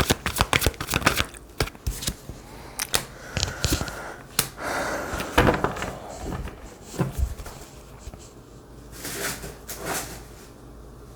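Tarot cards being shuffled and handled: a quick run of riffling clicks over the first two seconds, then scattered card slaps and rustles that thin out near the end.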